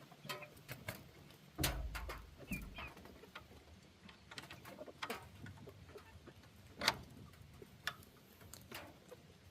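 Backyard chickens at their feed: scattered light taps and clicks, a dull thump about one and a half seconds in, and a brief high chirp a little after.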